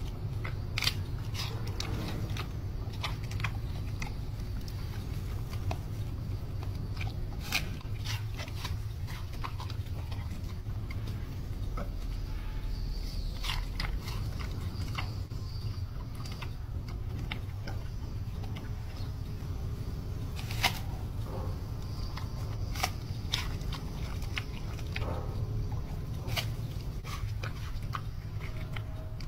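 Giant panda biting and chewing an apple: irregular crisp crunches and smacking, scattered through, over a steady low hum.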